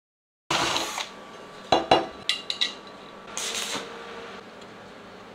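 Steel parts clinking and knocking against each other, with a few short ringing metallic taps around the middle and a brief hiss about three and a half seconds in.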